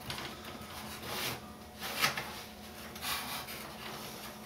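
Hands handling a foam model airplane: a few soft rubbing sounds, the loudest about two seconds in.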